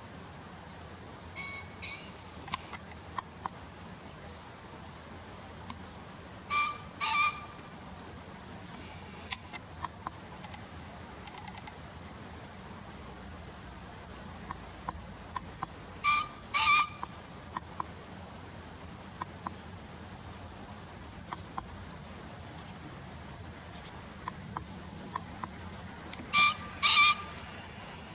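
Male Japanese green pheasant crowing its harsh two-note call three times, about ten seconds apart, with a weaker pair of notes near the start. Faint small-bird chirps and sharp ticks in the background.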